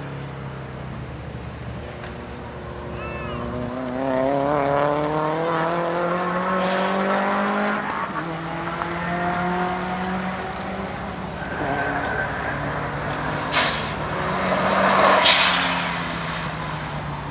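Cars lapping a race circuit at full throttle. An engine's pitch rises for several seconds, breaks at a gear change about halfway through, and climbs again. A car then passes close with a loud rush, the loudest moment, about two-thirds of the way in.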